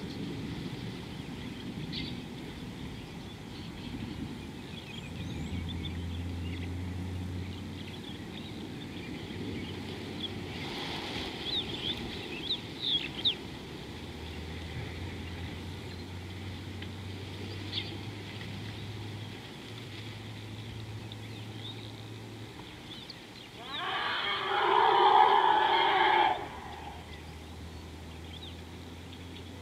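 Bush ambience with scattered short bird chirps over a low steady hum, and one loud, harsh animal call lasting about two seconds near the end.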